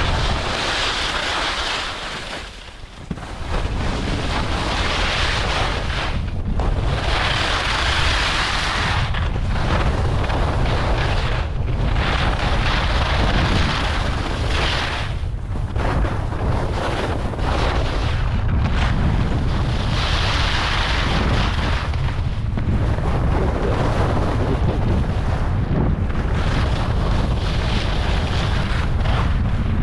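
Wind buffeting the microphone of a skier running downhill at speed, a steady low rumble. Over it the hiss and scrape of skis on packed snow swells and fades every couple of seconds with the turns.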